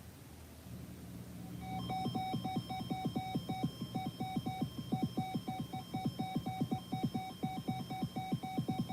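Emergency alert tone: a rapid, steady train of electronic beeps over a buzzing pulse that begins a couple of seconds in and cuts off suddenly at the end, marking the start of an Emergency Alert System warning message.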